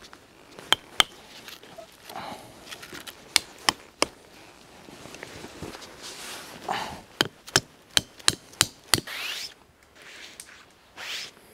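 Tent pegs being driven into forest ground with the back of a hatchet: sharp knocks, twice, then three in a row, then a quicker run of about seven.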